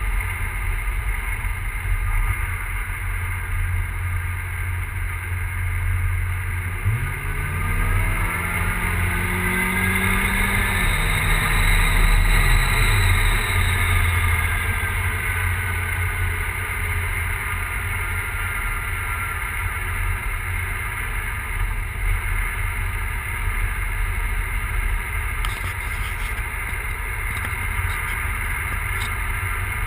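Big-turbo Volvo 940 engine running on E85 with an unexplained misfire, idling unevenly. It is revved up once about seven seconds in, held for a few seconds, then drops back to idle.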